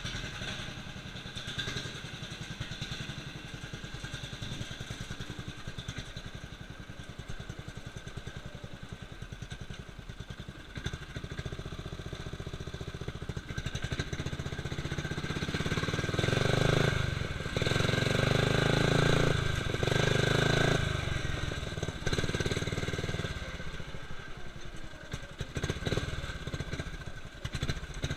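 Murray lawn tractor engine running steadily while being driven offroad, then getting louder in three surges a little past the middle before settling back.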